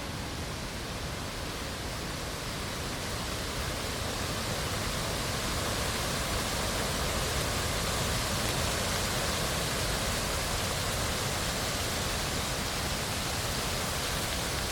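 Lake morning ambience: a steady, even wash of water noise that grows slightly louder a few seconds in.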